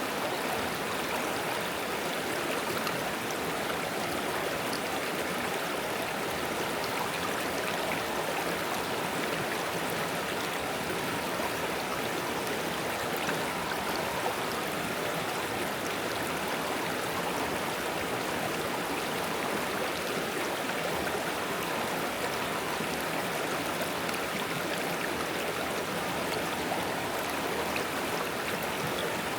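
Small forest stream flowing and babbling over stones, a steady even rush of water.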